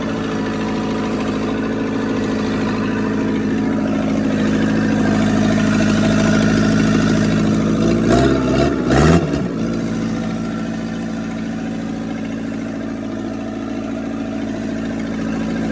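Engine running with no exhaust fitted, at a steady speed. Its revs briefly rise and fall about eight to nine seconds in.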